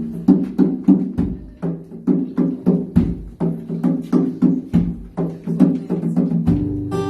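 Acoustic guitar strummed in a steady rhythm, sharp chord strokes about three times a second.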